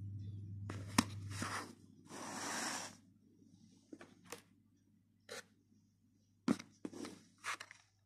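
Handling noise of lighters and their packaging on a table: a sharp click, then about a second of rustling and scraping, then a scatter of light clicks and knocks with short rustles of packaging.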